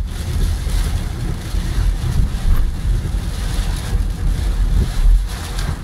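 Car driving through heavy rain, heard from inside the cabin: a steady low rumble of tyres on the flooded road, with rain washing over the car.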